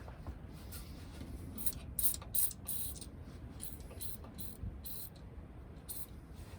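Aerosol penetrating oil sprayed in a series of short hissing bursts, several in quick succession, onto seized brake line fittings to free them.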